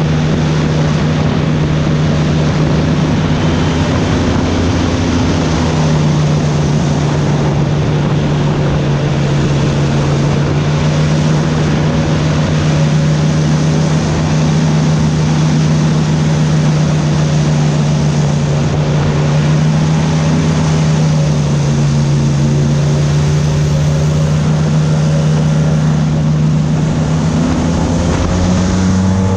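Airboat's engine and air propeller running steadily under way, a loud constant drone whose pitch dips slightly a couple of times and rises near the end as the throttle changes.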